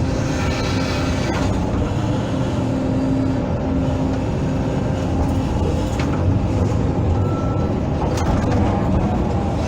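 Hydraulic excavator's diesel engine running steadily under load with a held whine from the hydraulics while it digs, and a few sharp knocks from the bucket and arm.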